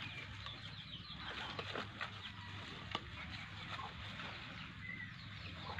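Birds chirping: many short, quick calls over a steady low rumble, with a single sharp click about three seconds in.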